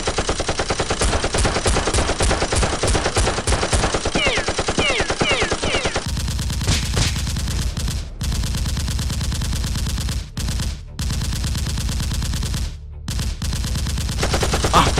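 Long rapid bursts of automatic gunfire, shots packed closely together, the kind of machine-gun sound effect laid over a Nerf battle; it breaks off briefly three times in the second half.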